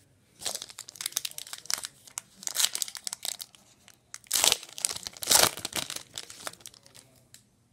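Foil wrapper of a trading card pack crinkling and tearing as it is handled and ripped open by hand: a run of crackles, with the loudest bursts about four and a half and five and a half seconds in.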